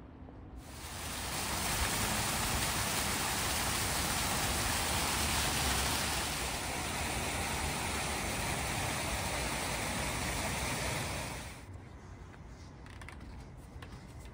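Steady rushing hiss of falling water from a plaza fountain, starting suddenly about half a second in and cutting off abruptly near the end.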